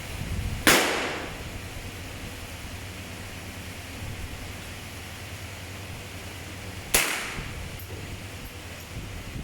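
Two shots from a Chiappa M4 .22LR rifle, about six seconds apart, each a sharp crack with a short decaying tail.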